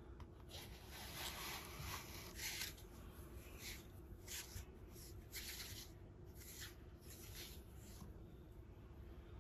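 Satin cloth rustling in gloved hands as it is lifted and gathered: a run of short, faint swishes, busiest in the first few seconds and dying away near the end.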